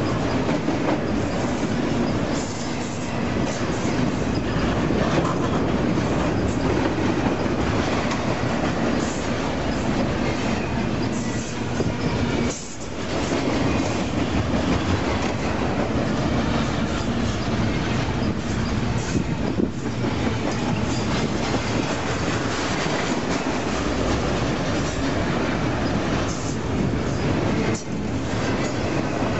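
Double-stack container train's well cars rolling past close by: a steady rumble and clatter of steel wheels on the rails, with brief dips in the noise about twelve seconds in and again near the end.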